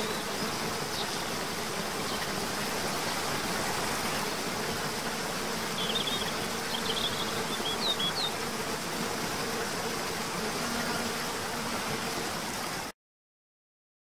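Steady rush of a waterfall, with a faint low hum beneath it and a few short high chirps about six to eight seconds in. The sound cuts off abruptly about a second before the end.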